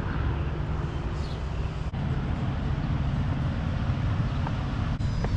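Steady low hum of a car on the road, engine and tyre noise, with an abrupt change in its tone about two seconds in.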